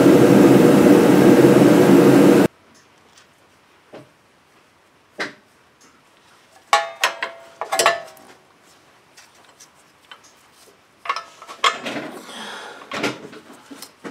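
A loud steady machine noise that cuts off suddenly a couple of seconds in. After it, light metallic clicks and clinks of parking-brake shoe hardware being handled and fitted on a rear wheel hub, with a cluster of ringing clinks around the middle and rustling and knocks near the end.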